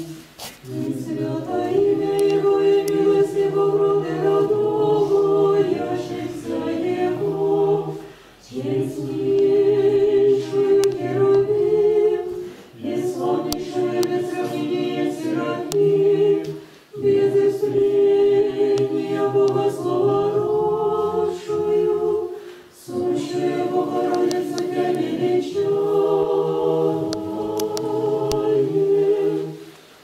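Congregation singing an unaccompanied Orthodox church hymn, men's and women's voices together, in long sung phrases with short breaths between them.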